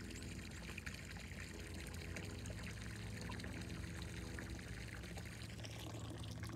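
A stream of water pouring from a boat's hull discharge outlet and splashing steadily into the river, over a steady low hum.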